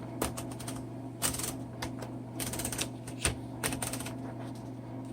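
1952 Royal Quiet DeLuxe manual portable typewriter's mechanism clicking and ratcheting as it is worked by hand: scattered single clicks and two short runs of rapid ratchet clicks.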